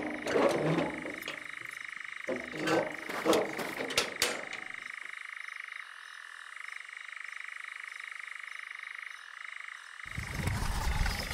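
Steady night chorus of frogs, a fast pulsing high call. In the first five seconds a few sharp knocks and short rustles sound over it, and near the end a low rumble comes in.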